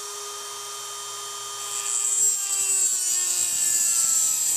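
Dremel rotary tool with a cut-off wheel, whining at speed, then grinding into the metal head of a tamper-proof carburetor bowl screw about two seconds in. A loud high hiss starts and the motor's pitch sags under the load. It is cutting a slot so the screw can be turned with a flathead screwdriver.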